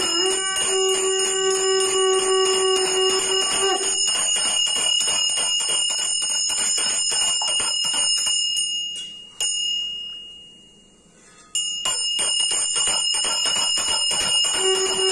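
A brass puja hand bell rung continuously and fast, stopping about eight seconds in, dying away, and starting again sharply a few seconds later. A conch shell blown in one long steady note sounds over the bell for the first four seconds and again at the very end.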